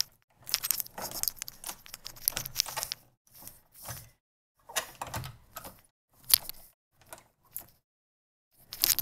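A metal window latch lever being worked by hand: irregular clusters of clicks, knocks and rattles. A sharper click comes about six seconds in.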